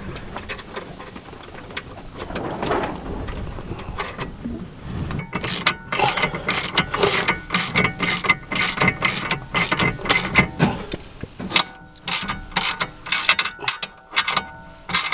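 Hand ratchet wrench clicking in quick runs as a nut is turned on a car's steering tie rod, with light metallic clinks of tools near the end.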